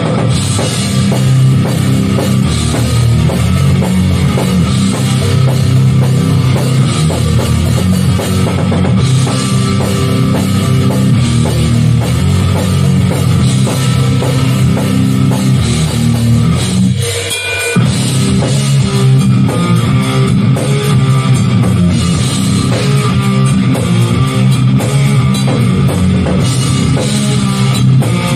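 Hardcore band playing an instrumental passage live: electric guitars and a drum kit at full volume, with a brief break a little past halfway before the band comes back in.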